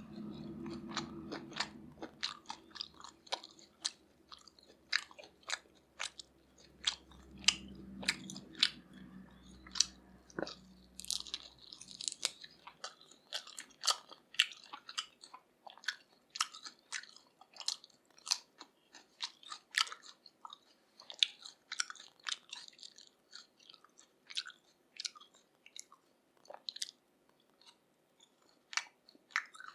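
Close-miked chewing of grilled pork neck in spicy sauce: a rapid, irregular run of wet mouth clicks and crunches. A low hum underneath stops about twelve seconds in.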